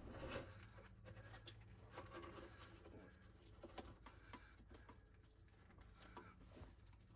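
Faint rubbing and light scattered clicks of a cable sliding through a plastic console opening as it is fed in and pulled out, over a low steady hum.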